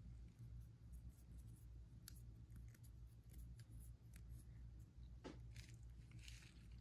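Near silence: a low steady room hum with a few faint ticks and soft scratchy strokes of a paintbrush dabbing a thin wash onto a sculpted figure.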